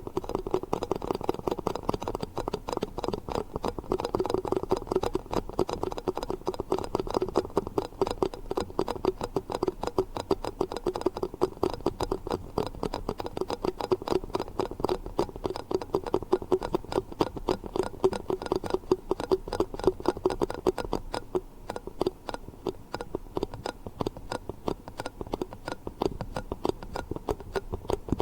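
Yogurt cups being tapped quickly and continuously, many light taps a second.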